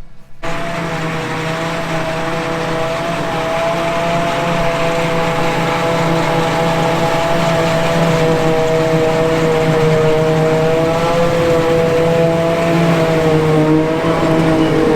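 Diesel farm machinery engine running steadily under load, with a steady whine whose pitch sags slightly near the end.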